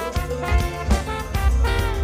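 Background music with a steady beat and brass-like instrument parts, in a swing or jazz style.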